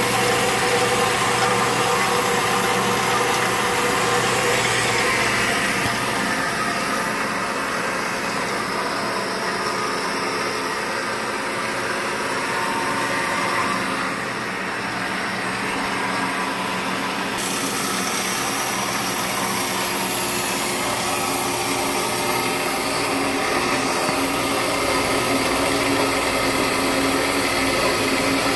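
Ellis 3000 metal-cutting band saw with a 220-volt three-phase motor, running steadily.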